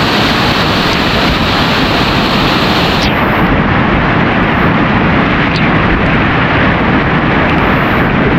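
Cascading waterfall pouring down close by: a loud, steady rush of falling water. About three seconds in, the highest hiss drops away and the rush turns duller.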